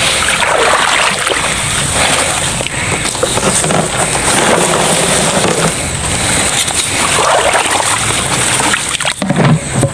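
Water splashing and sloshing as a perforated PVC eel trap is tipped out into a plastic bucket, a continuous noisy rush with no clear single knocks.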